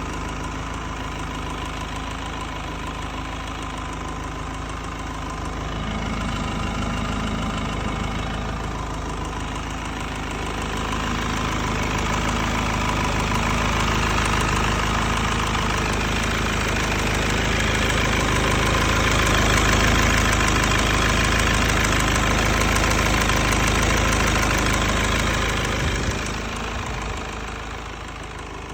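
Mercedes OM646 2.1-litre four-cylinder common-rail diesel engine idling, with an irregular light tick-tick-tick that comes and goes, a ticking that appears only once the engine is warm and whose cause is unknown. It grows louder towards the middle and drops back near the end.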